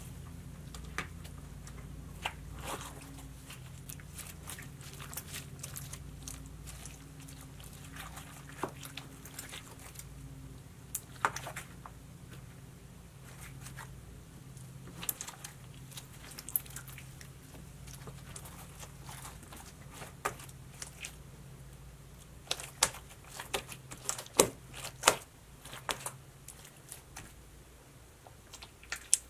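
Hands squeezing and kneading thick homemade borax slime with glitter and confetti, making scattered sticky clicks and pops that come thick and fast near the end. A low steady hum runs underneath and fades near the end.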